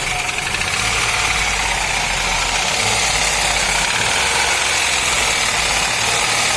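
Ford Ka three-cylinder engine running steadily at a light throttle, a little louder about a second in. It is making an abnormal internal engine noise that the mechanic expects will mean opening up the engine; he first suspected a blocked oil pickup.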